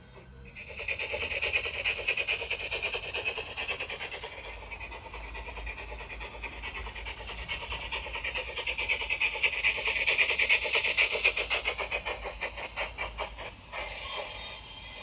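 Model steam locomotive chuffing in a quick, even rhythm as it runs past, starting about a second in and loudest a little past the middle.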